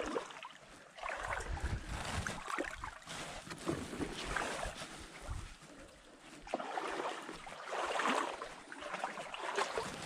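Canoe paddle strokes in the water, a swish and splash every couple of seconds.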